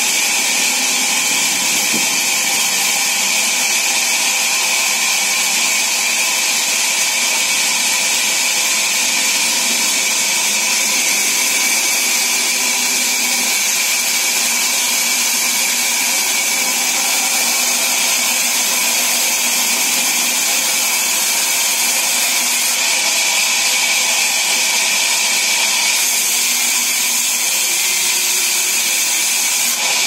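Large sawmill band saw running and cutting lengthwise through a thick timber slab: a steady, loud, high whine over a hiss, unbroken throughout.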